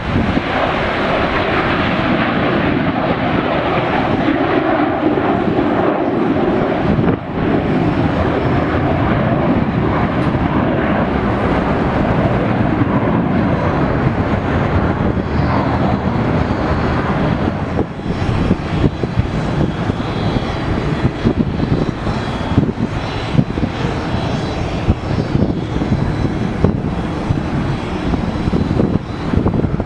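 A McDonnell Douglas MD-88's rear-mounted Pratt & Whitney JT8D turbofans at takeoff power as the jet lifts off and climbs out. About 18 seconds in the jet noise drops a little and turns choppier and gustier.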